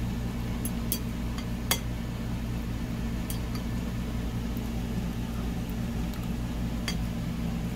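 Steady low hum in a small room, with a few light clicks and clinks of a fork against a plate as someone takes a bite and chews; the sharpest click comes just under two seconds in.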